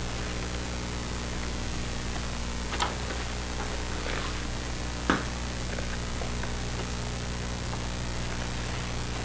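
Cardboard box flap being opened and a nylon stuff sack lifted out of the box: a few brief clicks and scrapes, the sharpest about three and five seconds in, over a steady low hum.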